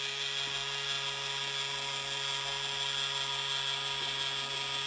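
Toy Sandcrawler playset's battery-powered motor lowering its suction tube: a steady, high electric whine over a low hum.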